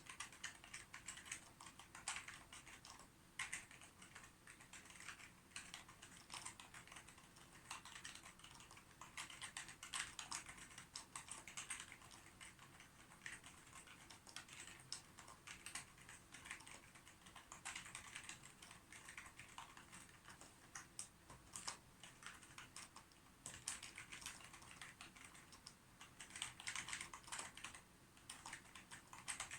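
Computer keyboard being typed on, in quick runs of keystroke clicks with brief pauses between them.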